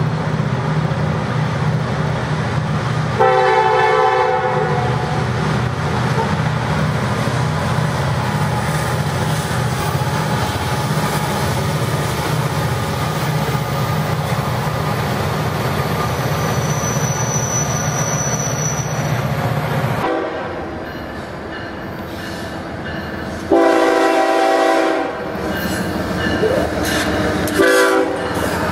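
Freight train diesel locomotives passing close, engines running and wheels rumbling, with an air horn blast about three seconds in and a brief high-pitched squeal around the middle. The sound changes abruptly about two-thirds through, where a horn blows again: a long blast, then a short one near the end.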